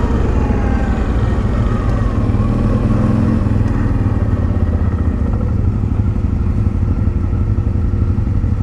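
ATV engine slowing down as the quad pulls over, then idling steadily once it has stopped.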